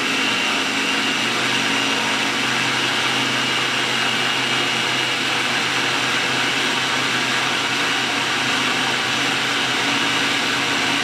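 Mitochiba electric food chopper running steadily with an even motor tone, its blades puréeing steamed pumpkin.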